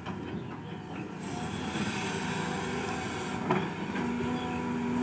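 Caterpillar 320 hydraulic excavator running as it swings its boom and lowers the bucket down the slope, the engine growing louder about a second in under working load. A short knock comes about three and a half seconds in, and a steady low tone sets in near the end.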